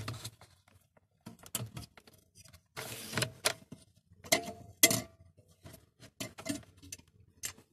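Irregular small clicks, taps and short scrapes of the wire spring retaining clip being worked free of an H4 halogen bulb at the back of a Toyota Yaris headlight, metal against the plastic housing, with a longer scraping rustle about 3 s in and a sharp click about 5 s in.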